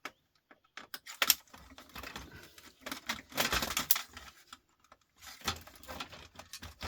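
Irregular clicks and rattles of small plastic and metal parts being handled and set down while an electronic unit is taken apart, with a longer clatter about three and a half seconds in.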